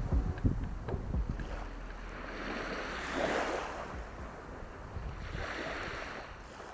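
Sea waves washing in, two swells of surf about three and six seconds in, with wind rumbling and thumping on the microphone in the first second or so. The sound fades down near the end.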